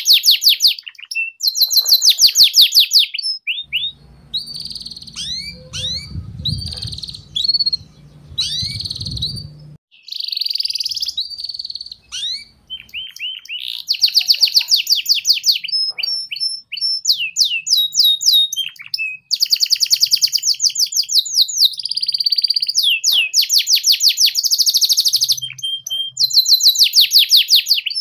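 Domestic canary singing a long twittering (ngeriwik) song: fast, rattling trills and rolls broken by short chips and quick upward-sweeping whistles, with hardly a pause. It is a canary prompt song of the kind played to teach young canaries to sing.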